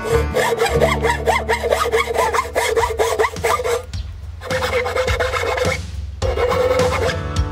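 Electric jigsaw cutting into a wooden board: a rapid rattle of blade strokes over a steady motor whine. It runs in three spells, stopping briefly about four seconds in and again about six seconds in.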